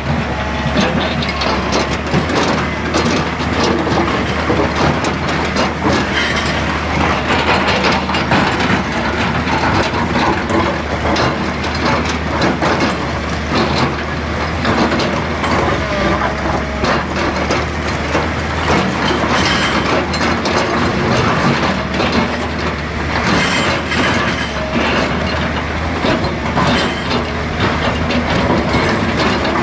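Excavator's diesel engine running steadily under a dense, continuous clatter of stones being moved.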